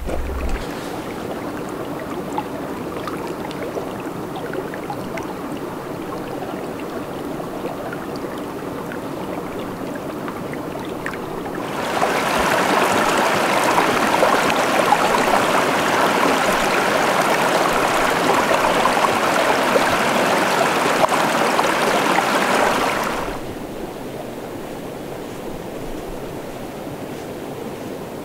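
Steady rushing of a mountain stream. About twelve seconds in it turns abruptly louder and brighter for about eleven seconds, then drops back to the softer rush.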